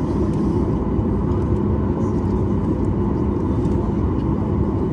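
Steady low engine rumble with a constant hum, unchanging in level.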